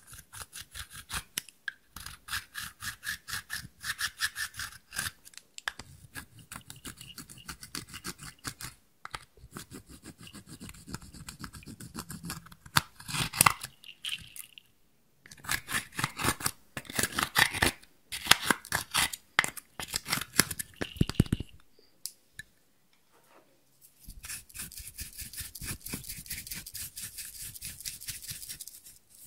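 A small tool scraping and breaking up pressed eyeshadow in a plastic palette, in quick repeated strokes about four a second. The strokes come in several runs with short pauses between them.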